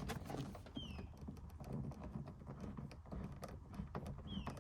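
A screwdriver working a door-panel screw that spins in place instead of backing out: a run of light, irregular clicks and ticks.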